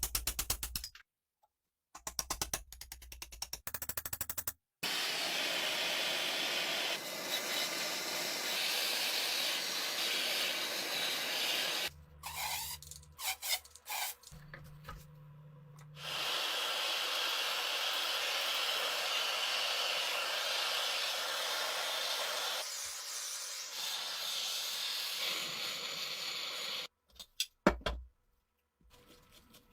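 Workshop tool noise in a series of short edited clips: long stretches of steady hiss, with a power tool's rapid buzzing rhythm near the start and short broken bursts around the middle and near the end.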